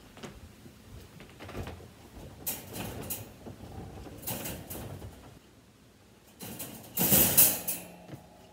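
Wire dog crate rattling and clanking in irregular bursts as the dog inside pushes and works at it. The loudest metal clatter comes near the end, as the crate door swings open.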